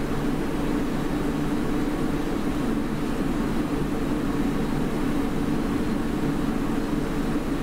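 Steady mechanical whirring hum, strongest in a low drone, holding at an even level throughout.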